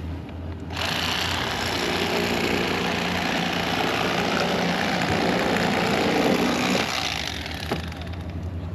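Electric fillet knife running for about six seconds as it cuts through a fish, starting and stopping abruptly, over a steady low hum.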